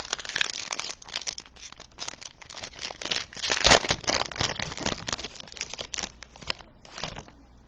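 Foil trading-card pack wrapper crinkling and tearing as it is ripped open, a dense crackly rustle that is loudest about halfway through and stops near the end.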